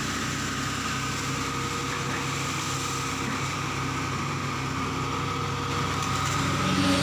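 Hitachi EX200 crawler excavator's diesel engine running steadily.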